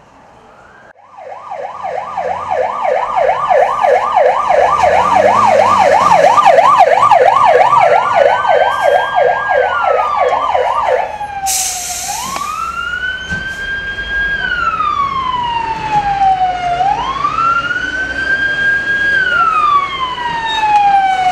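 Fire engine siren sounding in fast yelp mode, about three sweeps a second. About eleven seconds in, after a brief hiss, it switches to a slow wail that rises and falls every four to five seconds.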